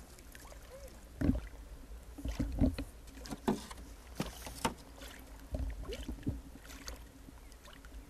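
Sea water slapping and splashing against a canoe, with a string of irregular knocks and splashes against the hull over a low steady rumble.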